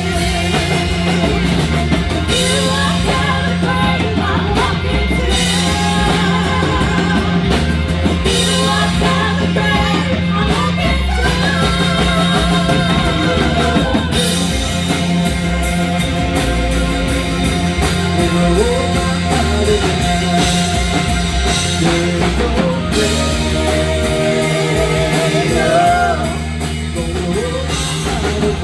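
Rock band playing, with drum kit, bass and electric guitar, at a steady full level that dips briefly near the end.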